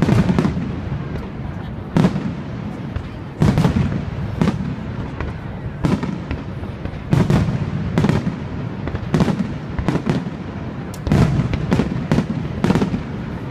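Aerial firework shells bursting one after another, a sharp bang about every one to two seconds. Each bang is followed by a low rumbling echo.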